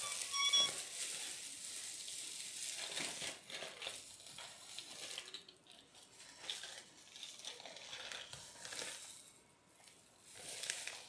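Plastic packaging crinkling and rustling in irregular spurts as it is handled and a bag is opened.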